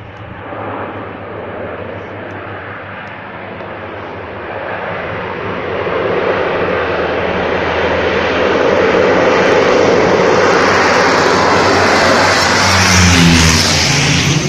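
Twin-engine amphibious firefighting plane flying low overhead. Its engine noise builds steadily, is loudest in the last few seconds, and drops in pitch as it passes.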